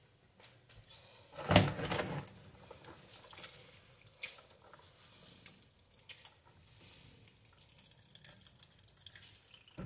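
Water splashing and dripping as handfuls of wet, shredded bitter leaf are squeezed out over a fine mesh strainer in a plastic bowl. There is one louder burst about a second and a half in, then softer, scattered drips and splashes.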